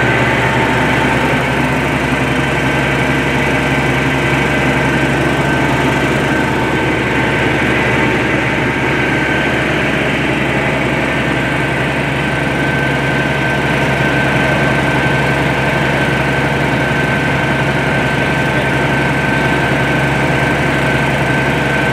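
Small engine of a hydraulic rescue-tool power unit running steadily, supplying pressure through the hoses to the spreader.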